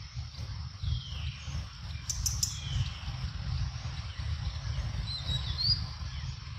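Faint high bird chirps: one falling call about a second in, and short quick chirps near the end. They sit over a steady low rumble, with a few sharp clicks a couple of seconds in.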